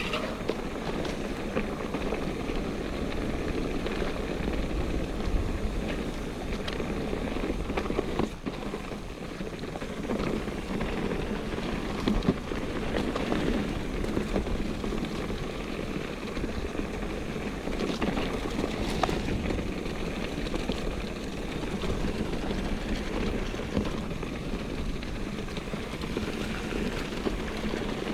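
Mountain bike riding down a rough trail: steady tyre and drivetrain noise with scattered knocks and rattles from the bike, over a low wind rumble on the microphone.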